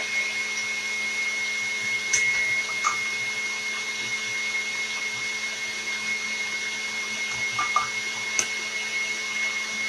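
Electric stand mixer running steadily as it whisks egg whites. Its motor gives a constant hum with a thin high whine. A few faint clicks sound over it.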